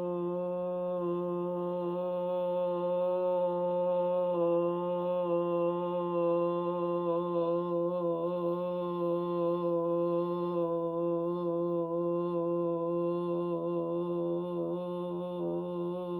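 A sustained, chant-like drone held on one low pitch with a rich stack of overtones, unbroken throughout. The upper overtones begin to waver slightly about halfway through.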